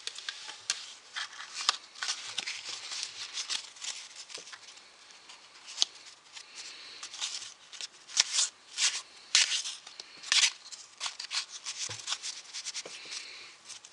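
A deck of Cardistry Fanning playing cards being handled, cut and flourished: quick, irregular clicks and snaps of card edges and faces against each other, with rustling in between. The loudest snaps come in a cluster about eight to ten and a half seconds in.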